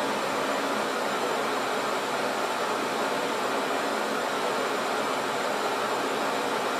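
Steady cockpit noise of a Boeing 737-800 flight deck in descent: an even rushing hiss of airflow and engine noise with a faint steady hum.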